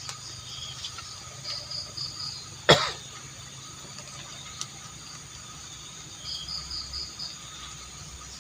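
Crickets and other night insects chirping steadily, with two short pulsing trills. A single sharp, loud sound cuts in about three seconds in, with a few fainter clicks around it.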